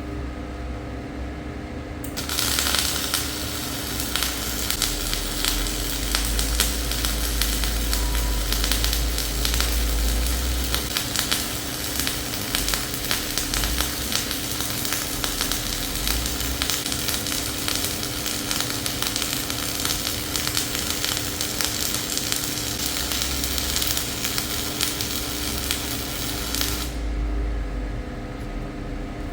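Gas-shielded flux-cored wire welding arc crackling and sizzling steadily, starting about two seconds in and cutting off near the end, over a steady hum.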